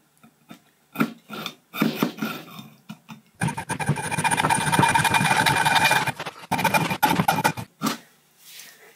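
Hacksaw cutting through 15 mm copper pipe held in a vise: a few separate scraping strokes, then about three seconds of fast continuous sawing with a metallic ring, then a few more strokes. The saw is taken halfway through the pipe's diameter.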